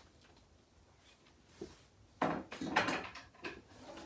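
Handling noise: a click, a light knock, then about a second of clattering knocks and rustling as someone shifts across a wooden floor and handles the prop's cables and plastic control box.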